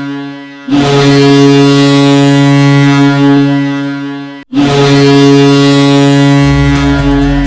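KM135 air goal horn sounding for a goal in long, steady blasts. The tail of one blast fades in the first half second, a second blast lasts about four seconds and cuts off abruptly, and a third starts at once. Near the end, the bass beat of the goal song comes in under the horn.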